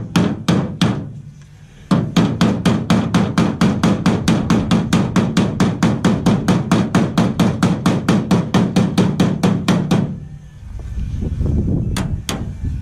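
Hammer striking a new sheet-steel truck door bottom panel, folding its edge down onto the door: a few blows, a short pause, then a long run of rapid, even blows, about five or six a second, stopping about ten seconds in, with two last blows near the end.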